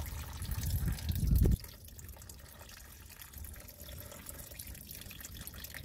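Used motor oil, dark with engine flush, pouring in a steady stream from a car's oil pan drain hole, running like water from a tap. A loud low rumble on the microphone covers the first second and a half and stops suddenly, leaving the steady pour.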